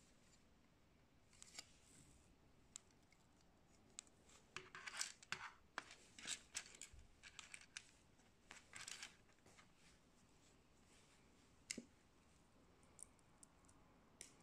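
Faint clicks, scrapes and rattles of small plastic building bricks being handled, picked out of a loose pile and pressed together, busiest in the middle, with one sharp click a couple of seconds before the end.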